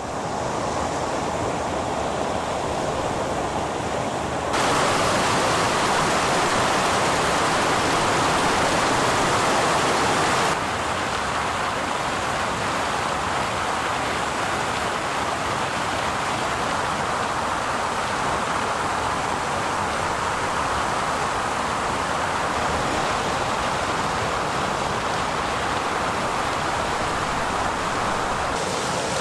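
River water pouring over a concrete weir and splashing into the pool below: a steady rush. It gets louder about four seconds in and eases back a little about ten seconds in.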